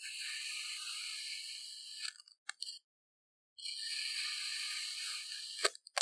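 A knife blade pushed slowly down through crunchy kinetic sand, a dry, grainy crunch, twice over. Each cut ends in a few sharp clicks as the blade meets the wooden board.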